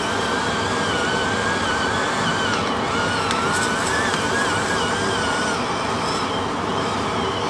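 Battery-operated electric salt and pepper grinders running as they grind into a pot: a steady motor whir with a high whine that wobbles in pitch. The motor sounds like its battery is dying.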